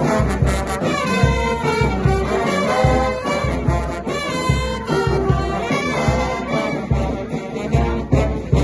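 Street brass band playing live: trumpets and trombones carrying a melody over a steady low beat.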